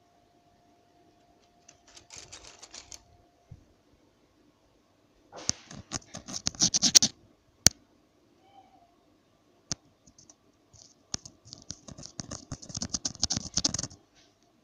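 Wooden craft sticks clattering as a hand stirs and shuffles through a pile of them, in three bursts of rattling, with a couple of single sharp clicks between the bursts.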